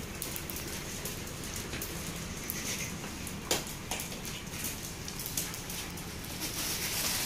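Dogs' claws clicking and pattering on a tiled floor as several dogs move about, with one sharper knock about three and a half seconds in.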